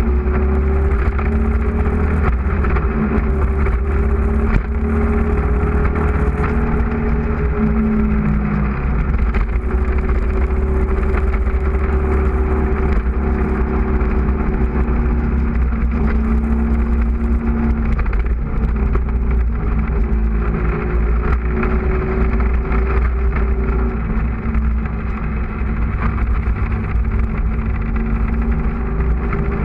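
Motorcycle engine running at speed under a heavy, constant wind rumble on the onboard microphone. The engine pitch rises and falls with the throttle, with a few sudden drops like gear changes.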